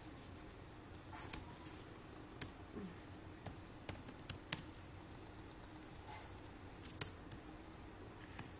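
Irregular computer keystrokes and clicks while an equation is edited in a word processor: single sharp taps a second or so apart, with a couple of quick pairs.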